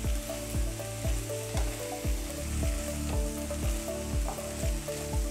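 Cooked beans and grated coconut sizzling in a hot frying pan as a wooden spatula stirs them. Background music with a steady beat of about two beats a second runs over it and is the loudest sound.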